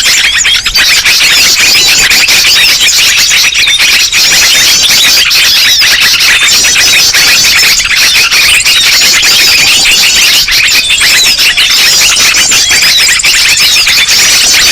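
A dense chorus of many small birds' calls layered over one another, with rapid chirps and trills forming a continuous, high-pitched racket without pauses. It is a bird-luring (pikat) recording, meant to draw in small birds of all kinds.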